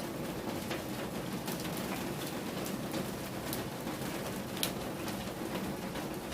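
Steady rain falling, with single drips ticking sharply now and then at irregular moments over a low, even rush.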